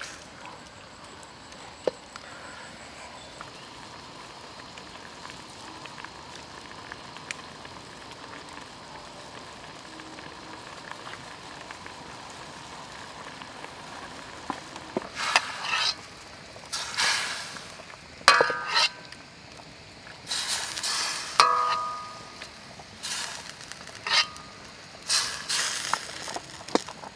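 Pork ribs simmering in a steaming wok of water over a wood fire: a steady, faint bubbling hiss. From about halfway on, a string of loud, short, noisy bursts breaks in, a few of them with a brief tone.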